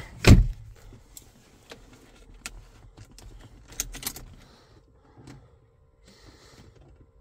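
Car key jingling on its keyring and clicking at the ignition, with one sharp knock just after the start and scattered light clicks after it. A faint steady hum comes in during the second half.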